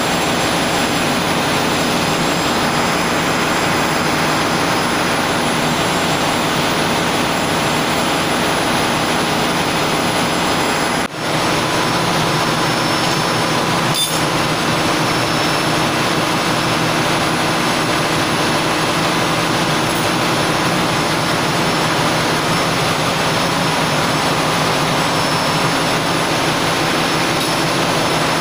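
Ship's engine-room machinery running: a loud, steady drone with layered hums. It breaks off for an instant about eleven seconds in.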